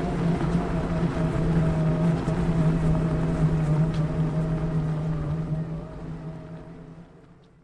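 Omeo self-balancing wheelchair's electric drive motors humming steadily over a low rumble as it drives, fading out over the last two seconds.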